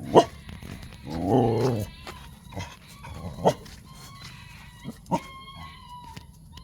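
Dogs playing together and making a few short, sharp barks or yips, with one longer wavering vocal sound lasting about a second near the start.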